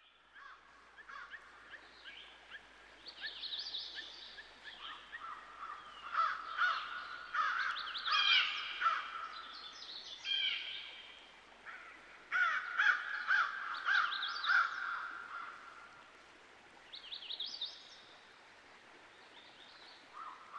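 Many birds chirping and calling at once in dense, overlapping bursts of short rapid notes, louder in the middle and thinning out toward the end.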